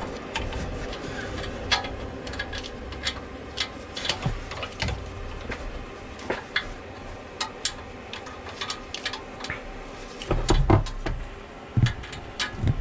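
Hand tools working on an exhaust-manifold bolt under a car: irregular metallic clicks and clinks of a socket wrench and its extension, with a few heavier dull knocks near the end.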